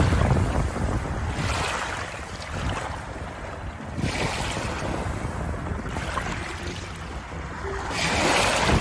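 Waves washing in, a rush of water that swells and ebbs every few seconds.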